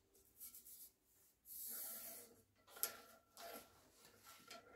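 Polishing fleece on a rod rubbing through a rifle barrel's bore: faint scraping strokes, with one longer hiss about one and a half seconds in. This is the bore being polished after rifling.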